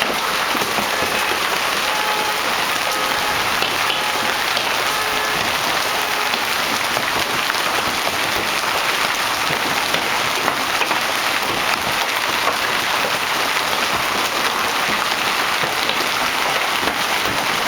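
Hail storm with heavy rain pelting down steadily: a dense hiss of countless small impacts.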